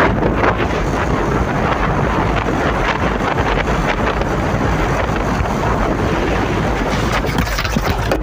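Loud, steady wind rushing and buffeting on a phone's microphone, held up by riders on a motorcycle moving at speed on a highway; the rush cuts off at the very end.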